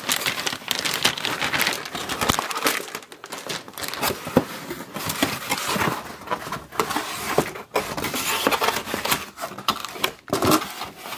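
A cardboard box being opened and the packing inside handled: continuous crinkling and rustling with scrapes and sharp knocks.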